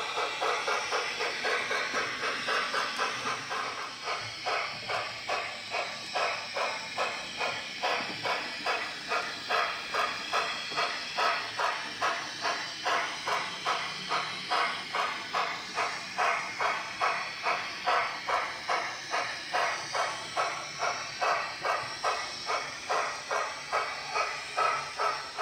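Youchoos sound file on a Bachmann D11 model steam locomotive's sound decoder, playing a steady beat of exhaust chuffs with steam hiss as the model runs. The chuffs come quicker and louder for the first few seconds, then settle to about two a second.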